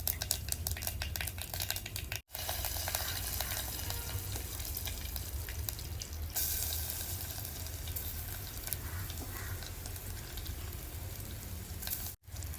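Hot oil sizzling in a pan for a rasam tempering, with fast crackling and spattering for the first two seconds, then a steady sizzle that grows brighter about six seconds in. The sound drops out briefly twice.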